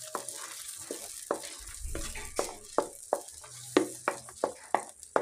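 Tomato puree sizzling in hot oil in a non-stick pan while a spatula stirs it, scraping and knocking against the pan about three times a second.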